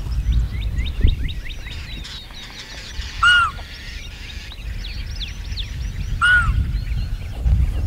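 Small birds chirping steadily in short falling notes. Two louder, arching calls stand out, one about three seconds in and one about six seconds in. A low rumble runs underneath.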